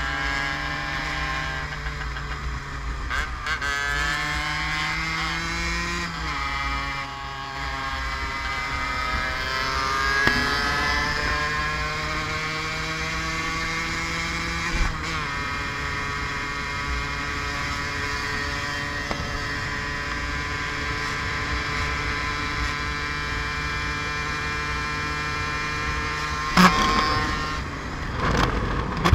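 Yamaha DT 50's small two-stroke engine running as the bike rides along. Its pitch rises and drops in steps in the first several seconds, then holds steady. A sharp knock comes near the end.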